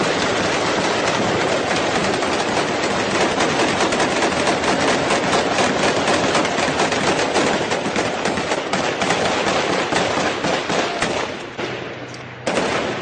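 Sustained automatic rifle fire, many shots in quick overlapping succession. It eases off near the end, then a fresh loud burst starts abruptly, with a Kalashnikov-pattern assault rifle firing.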